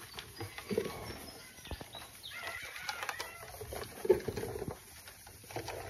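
Rustling of leaves and cardboard with scattered light clicks as mud crabs are handled and packed from a plastic basin into a cardboard box.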